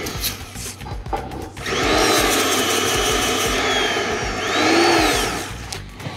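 Straight die grinder with a small abrasive roll grinding paint off the edge of a steel pipe flange: a gritty rasp over a high whine that bends up and down as it bites. It eases off early, then runs hard again until near the end.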